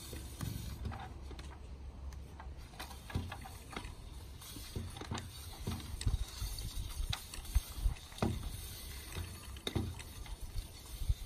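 Irregular knocks and scrapes of a black plastic water pipe and steel lifting cable being fed by hand down a PVC well casing as a submersible pump is lowered, over a steady low rumble.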